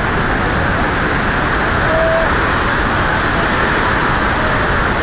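Floodwater rushing through a dam's open radial spillway gates and crashing into the churning basin below: a loud, steady rush of falling water.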